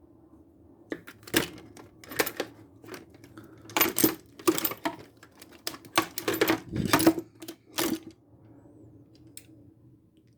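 Steel locking pliers (Vise-Grips) clinking and clanking against each other as they are handled in a toolbox. A quick run of sharp metal knocks stops about eight seconds in.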